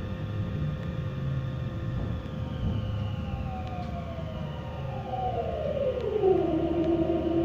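Meitetsu 3150 series electric train's VVVF inverter and traction motors whining over the low running rumble. The whine falls steadily in pitch from about two seconds in, then settles on a steady lower tone near the end, as the train slows.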